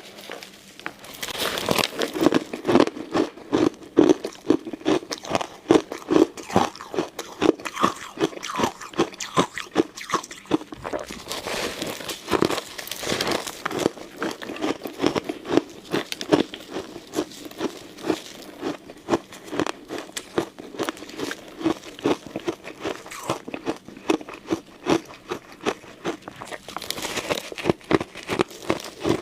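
Ice cubes being bitten and crunched between the teeth and chewed close to the microphone: rapid, irregular sharp cracks and crunches, several a second.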